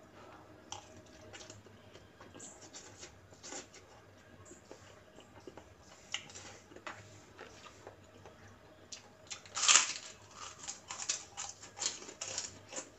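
Close eating sounds: chewing fried instant noodles, with small clicks of a fork in the bowl, then a loud crunchy bite into a kerupuk cracker about ten seconds in, followed by a quick run of crisp crunching chews.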